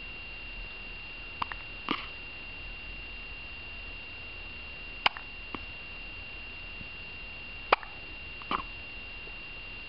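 Short, sharp hiccups at uneven intervals of one to three seconds, over a steady high-pitched whine.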